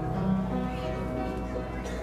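Live music for a children's stage musical, played by a pianist, with sustained notes.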